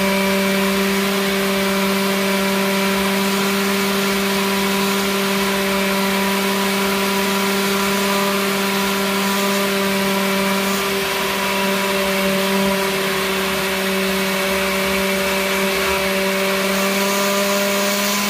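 Blender running steadily, grinding soaked dried chiles in their soaking water into a smooth purée: an even motor hum with a whirr over it.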